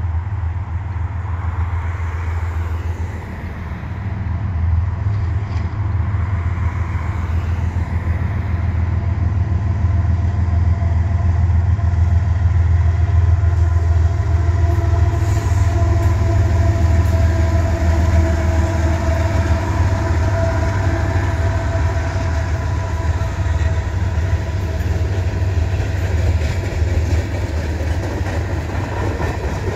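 Canadian Pacific freight train passing close by: the lead GE diesel locomotives run under power with a heavy low rumble that grows louder over the first dozen seconds, and a steady high tone holds for several seconds midway. Loaded tank cars then roll past with the running noise of wheels on rail.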